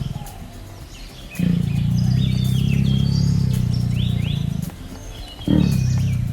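An animal's low, rough, drawn-out calls: one lasting about three seconds, starting a second and a half in, and another starting near the end, with small birds chirping in the background.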